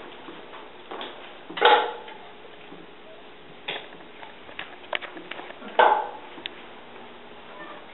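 A few sharp clattering knocks, the loudest about two seconds in and again near six seconds, among lighter clicks.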